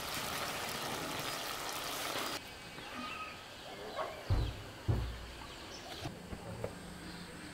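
Braised duck simmering in a clay pot, an even hiss that cuts off about two and a half seconds in. Then quiet rural outdoor ambience with two dull thumps and a faint bird chirp.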